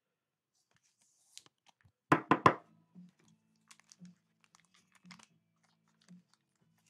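Three quick knocks about two seconds in, as trading cards are knocked against a tabletop, then faint clicks of the cards being handled over a faint low hum.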